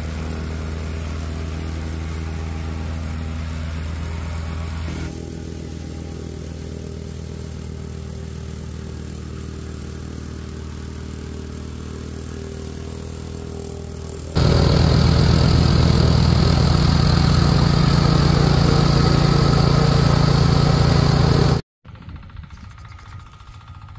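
Plate compactor's small petrol engine running steadily as the plate vibrates over gravel. The sound jumps louder about fourteen seconds in and cuts off abruptly near the end.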